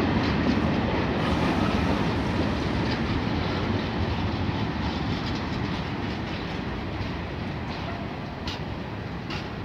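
Freight train of covered grain hopper wagons rolling past, a steady rumble of wheels on rails with a few sharp clicks over rail joints near the end, slowly growing quieter.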